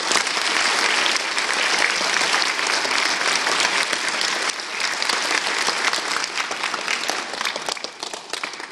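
An audience applauding, many hands clapping at once; the applause tails off near the end.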